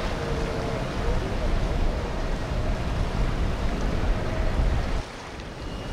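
Boat traffic on a river: engine rumble and water wash, with wind buffeting the microphone. The sound dips for about a second near the end.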